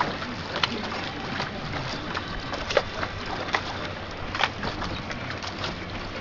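Strong wind and rough sea around a ship making slow headway in heavy weather: a steady rushing noise broken by frequent short, sharp clicks and knocks.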